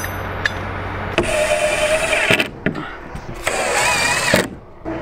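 Cordless Milwaukee impact driver driving screws into the OSB skin of a structural insulated panel, in two runs of about a second each, each with a steady whine over rapid hammering.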